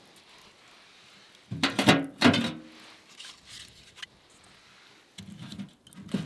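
Split firewood knocking against the stainless-steel body of a small Poshehonka tent wood stove, with a few sharp knocks and a short metallic ring about two seconds in. Faint ticking from the burning logs follows, then more knocking near the end as a log is pushed into the firebox.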